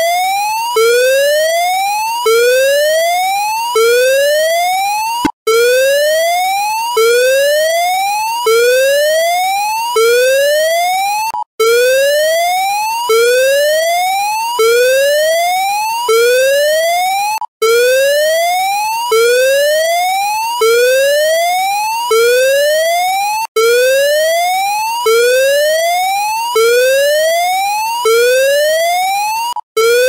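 Electronic evacuation alarm sounding a whoop tone: a loud rising sweep that cuts off and starts again about every second and a half, with a brief break about every six seconds.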